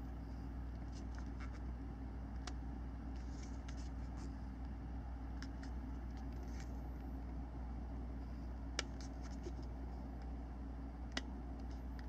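Silicone tape being stretched and wrapped around a handheld GPS unit's rubber case: faint scattered crackles and light ticks, with two sharper clicks in the second half, over a steady low hum.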